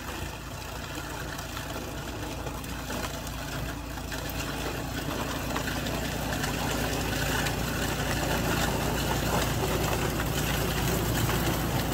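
Troy-Bilt Storm 2420 two-stage snowblower's single-cylinder engine running steadily under load while its auger and impeller churn through light snow and throw it out of the chute, growing gradually louder as the machine comes closer.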